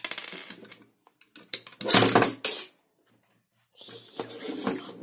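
Plastic Lego bricks clicking and clattering as hands pull apart and handle a small Lego helicopter model, with a sharp click at the start and the loudest clatter about two seconds in.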